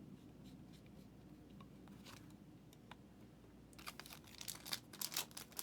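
Plastic card-pack wrapper crinkling and tearing as a trading-card pack is handled and ripped open, a quick run of sharp crackles starting about two-thirds of the way in after a near-quiet stretch.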